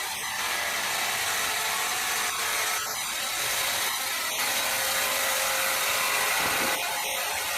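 Power saw cutting through timber: a steady, bright machine noise with small swells in loudness.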